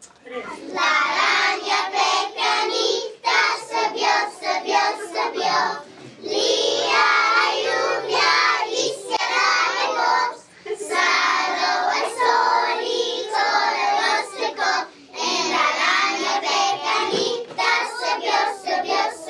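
A group of young children singing together in unison, in phrases of a few seconds each with short breaks between them.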